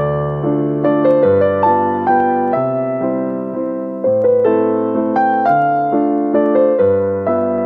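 Background piano music: slow, sustained chords struck about every second, with a melody line on top.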